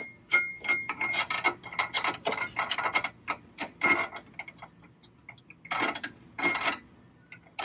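Ratchet wrench clicking in a quick run for about three seconds as the bolts holding a mechanical RV landing-gear leg to the frame tabs are fitted and tightened, followed by a few scattered metal clicks and two knocks.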